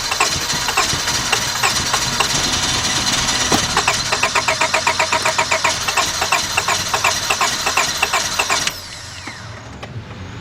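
Starter cranking the 2002 Honda Accord's 2.3-litre four-cylinder engine in a fast, even rhythm without it catching. It is a cranks-but-no-start fault with spark present; at one point the engine seemed like it was going to start. The cranking stops abruptly about a second and a half before the end.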